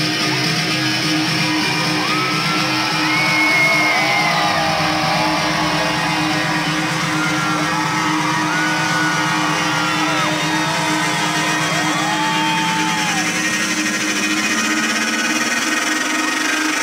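Live electronic dance music played loud over a concert sound system and picked up on a phone among the crowd, with a steady low drone and a low tone that rises over the last few seconds as the track builds.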